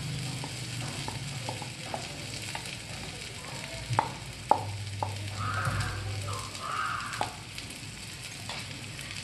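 Oil sizzling in a non-stick kadhai as roasted sweet corn kernels are tipped in and stirred with a wooden spatula, with a few sharp knocks of the spatula against the pan about four to five seconds in and again a little later.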